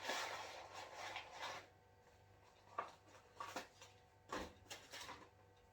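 Paper fast-food packaging being handled: a rustle lasting about a second and a half, then several short scrapes and rustles.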